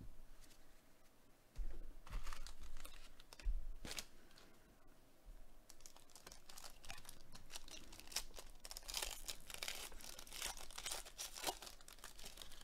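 Foil wrapper of a trading-card pack being torn open and crinkled by hand: short ripping and rustling bursts, then a busier run of crinkling near the end.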